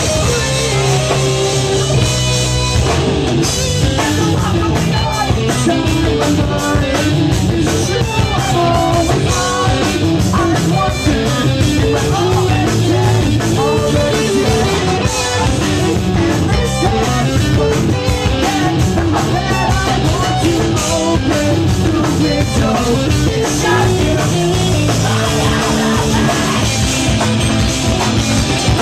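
Live rock band playing loud: electric guitars, bass guitar and a drum kit with a steady beat, with sung vocals.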